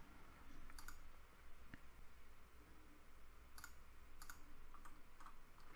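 A few faint computer mouse clicks, spaced irregularly, over quiet room tone.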